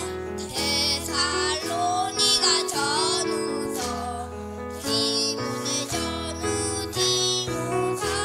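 A group of young children singing a song into microphones, with instrumental accompaniment.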